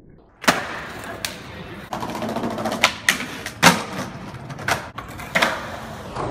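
Skateboard wheels rolling over paving, broken by about seven sharp cracks of the board's tail popping and the board landing. The loudest comes about half a second in.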